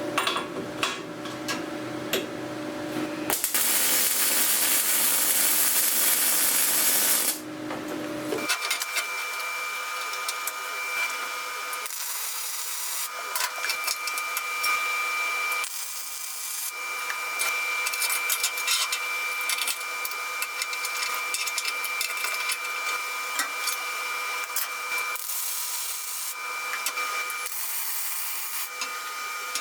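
MIG welding arc crackling and sizzling in runs as steel cross pieces are welded into a window grate frame. A steadier, louder sizzle comes a few seconds in, and a steady high tone sounds under the crackle in the later part.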